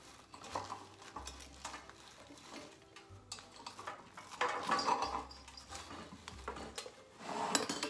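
Ribbon rustling as hands thread and tie it around the top of a metal lantern, with small clinks and taps mixed in. It is busier about four and a half seconds in and again near the end.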